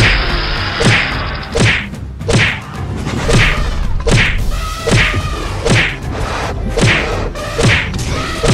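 Cartoon fight sound effect: a whacking hit repeated about every three-quarters of a second, each hit with a short falling pitch sweep, for an animated elephant and stegosaurus butting heads.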